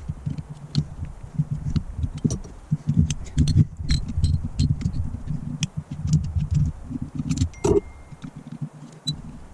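Irregular clicks and clinks of hand tools and small metal carburettor parts being handled, over low knocking handling noise on a workbench.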